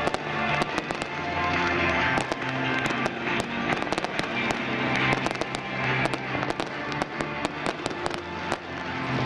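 Fireworks going off in quick succession, sharp bangs and crackles several times a second, with music playing underneath.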